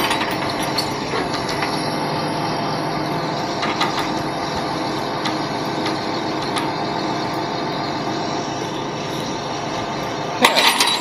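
Rollback tow truck running with its PTO engaged to drive the hydraulics: a steady mechanical drone with several held tones and occasional faint clicks. A few sharp clanks come near the end.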